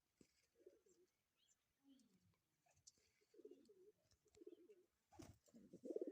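Pigeon giving its mating coo: repeated low, warbling coos that come more often and louder toward the end. A sharp knock sounds about five seconds in.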